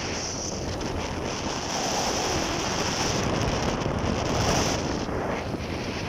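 Wind rushing over the microphone of a camera on a moving vehicle, a steady roar with road noise underneath.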